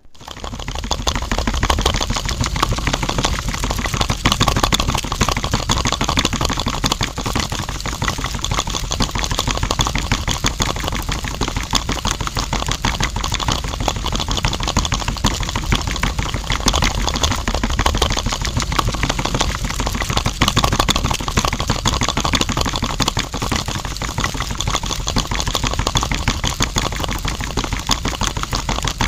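Small toy DC motor driving a miniature concrete mixer drum loaded with wet concrete, with a fast, dense gear clatter. It starts abruptly and then runs steadily.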